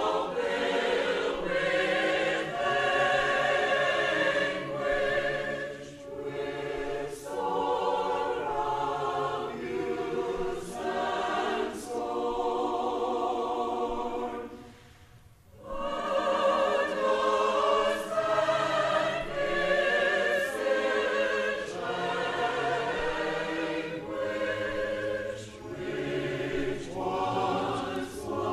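A choir singing, with a short break between phrases about halfway through.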